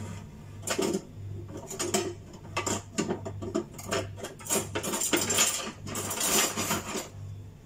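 Metal kitchen utensils and pans clinking and clattering in a quick, irregular run of knocks, with a low hum beneath.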